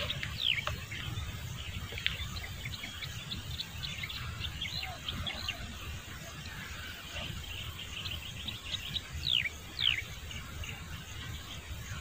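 Small birds chirping and twittering, with a few quick downward-sliding calls, about a second in and twice near the end, over a steady low rumble.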